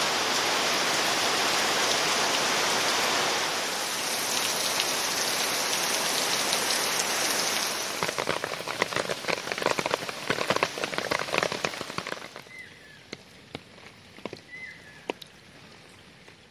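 Heavy rain falling steadily, then thinning after about 8 seconds into separate drips and splashes, and fading near the end to scattered drops.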